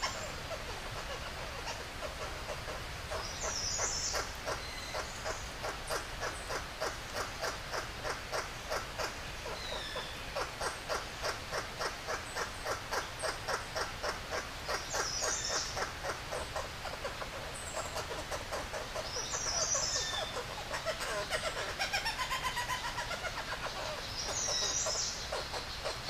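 Male blue bird-of-paradise giving its display song while hanging upside down: a long run of rapid, even pulses, about three a second.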